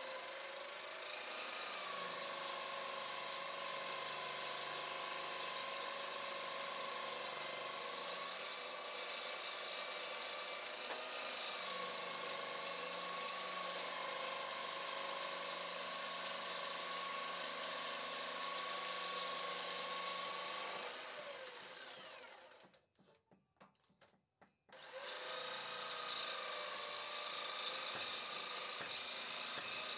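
Makita electric jigsaw with a metal-cutting blade sawing a lengthwise slot in a metal tractor frame: a steady motor whine with the rasp of the blade cutting. It stops about twenty seconds in, falls silent for a few seconds, then starts cutting again.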